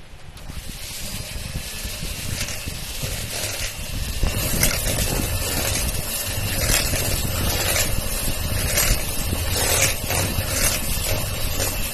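Electric hand mixer running, its beaters whipping butter, sugar and eggs into cake batter in a bowl, with a steady motor hum and the beaters clicking against the bowl; it gets louder about four seconds in.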